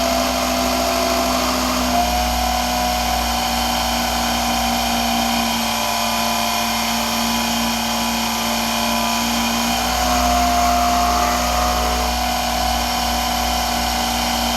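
Lorch 6 mm watchmaker's lathe running under its electric drive motor: a steady motor hum and whine, with small shifts in pitch about two seconds and ten seconds in. Most of the noise is the motor, as the headstock itself runs smoothly.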